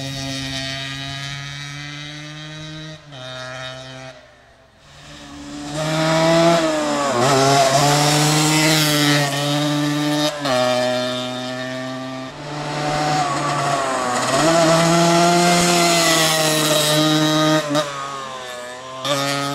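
Yamaha DT 125's two-stroke single-cylinder engine on a Giannelli exhaust, revving hard through the bends. Its pitch steps up and down with the throttle. It fades to quiet about four seconds in, then grows loud again as the bike comes past.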